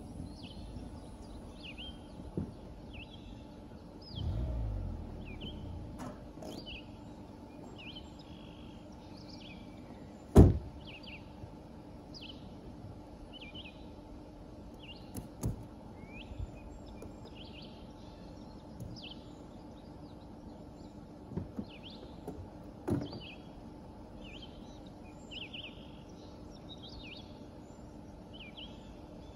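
Small birds chirping over and over, with a few scattered knocks and one sharp, loud thump about ten seconds in. A brief low rumble comes around four seconds in.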